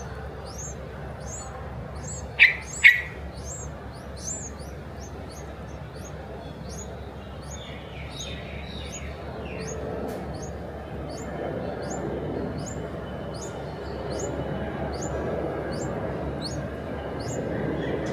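Small bird chirping: a thin, high chirp repeated steadily about one and a half times a second, with two loud, sharp chirps about two and a half seconds in.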